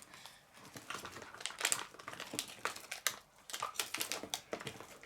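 Plastic packaging crinkling and rustling in irregular crackles as it is handled and opened.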